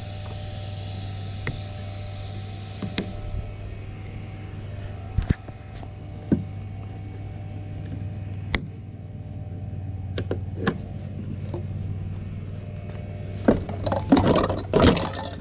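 Hand cutters snipping a refrigerator's wiring and refrigerant lines: a few sharp clicks spaced out, then a cluster of metal knocks and scraping near the end as the compressor is worked loose. A steady low hum runs underneath.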